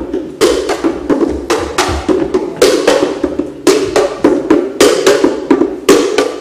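Wooden box drum slapped by hand in a quick, driving rhythm of about three strikes a second.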